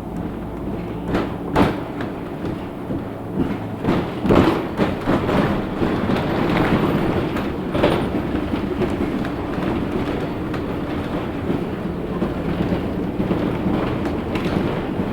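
Cabin noise inside a LiAZ 6213.65 articulated city bus under way: a steady engine and road hum with rattling, and several sharp knocks from bumps in the first half.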